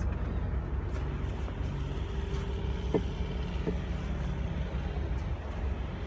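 The 2017 Honda HR-V's 1.8-litre four-cylinder engine idling steadily, a low even rumble heard close to the car. Two light clicks come about halfway through.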